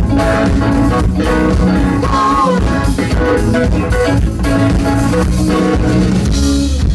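Soul-funk band playing live through a club PA: electric guitar, bass, drum kit and keyboard, with a steady drum beat, heard loud from within the crowd.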